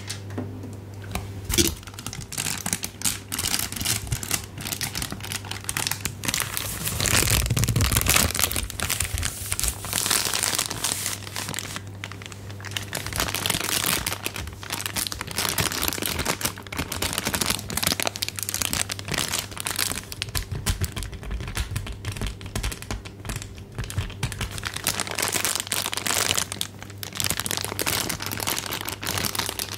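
Something crinkly being crumpled and handled continuously: a dense, irregular crackling that gets louder about a quarter of the way in.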